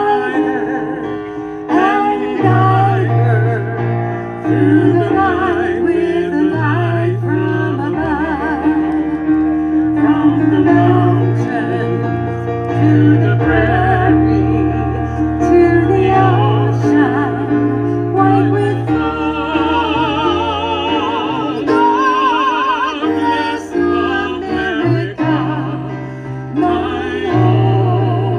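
A singer with heavy vibrato performing a slow song live, accompanied by a keyboard holding sustained bass notes that change every second or two.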